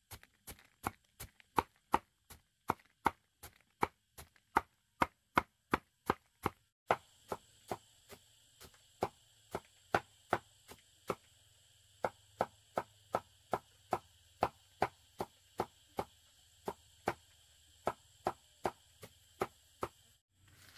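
Steady rhythmic chopping: sharp strokes at about three a second, with a brief break about seven seconds in and again near the end.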